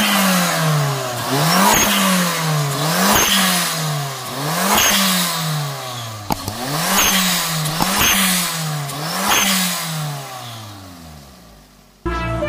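Turbocharged 1.3-litre four-cylinder engine of a Perodua Myvi being blipped at standstill: the revs jump up and fall away again about every one and a half seconds, with a sharp snap and short hiss at each throttle lift. After the last blip the revs drop away and fade.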